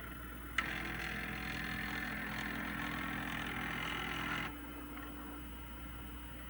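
Stepper motors of a homemade mini CNC built from old CD-ROM drives running under G-code: a click about half a second in, then a high buzzing whine as the axis moves, cutting off abruptly about four seconds later, over a steady low hum.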